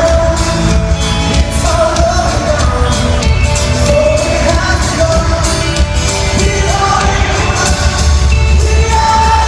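Live rock band playing a song in an arena, with amplified guitars, drums and a heavy bass under sung vocals.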